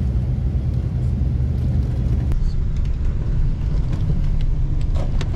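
Engine and road noise of a long-distance coach heard from inside the passenger cabin: a steady low rumble as the bus drives slowly. A few faint clicks near the end.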